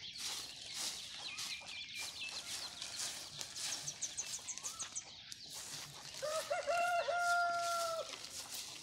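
A rooster crowing once, one long call of about two seconds starting some six seconds in. Small birds chirp faintly before it.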